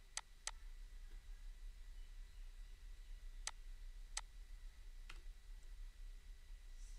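A few faint, sharp clicks from a computer mouse and keyboard: two close together at the start, then single clicks about three and a half, four and five seconds in, over a low steady hum.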